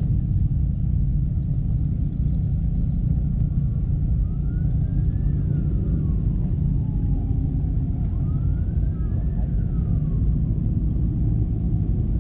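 Steady low rumble, with a faint siren wailing up and down in the distance, rising and falling twice.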